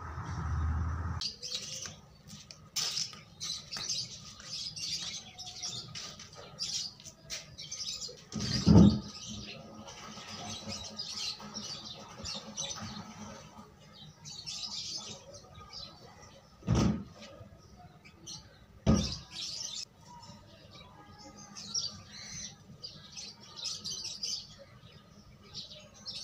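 Small birds chirping and twittering in short high calls, with three sharp thumps about 9, 17 and 19 seconds in, the loudest sounds here.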